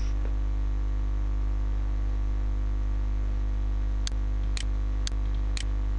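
Steady low electrical mains hum picked up by the microphone. In the second half come four computer mouse clicks, about half a second apart, as checkboxes are unticked.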